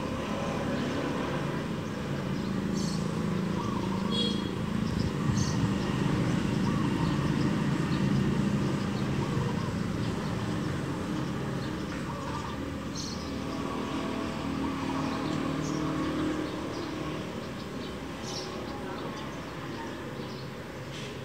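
Roadside ambience: a low rumble swells for several seconds and then eases off, with a few short bird chirps now and then.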